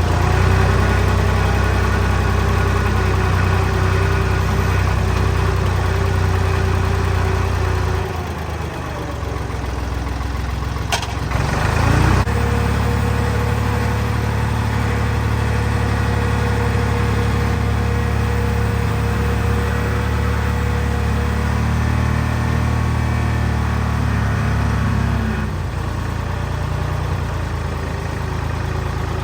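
Tractor engine running steadily. It eases off about eight seconds in, comes back up after a short sharp knock around eleven to twelve seconds, and settles lower again near the end.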